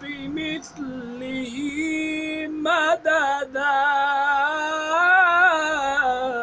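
Melodic Quran recitation in tajweed style. A single voice chants the close of the verse in long held notes with wavering ornaments and a few brief breaks.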